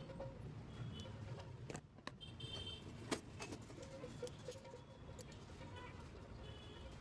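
Faint scattered clicks and taps, with one sharper knock about three seconds in, over a low steady rumble.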